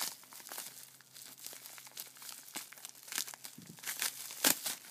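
Bubble wrap and plastic packaging crumpled by hand: irregular crinkling crackles, the loudest one near the end.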